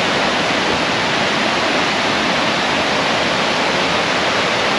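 A river rushing over rocks, a steady, even sound of flowing water that holds the same level throughout.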